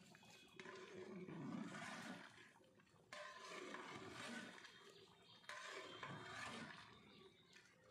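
Long metal ladle stirring a large pot of beef rezala, three stirring strokes through the meat and gravy. Each starts suddenly and fades over about two seconds.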